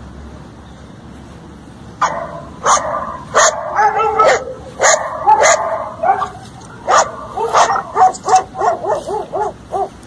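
Dog barking: after a quiet start, a string of barks begins about two seconds in and ends in a quick run of short yips, about four a second.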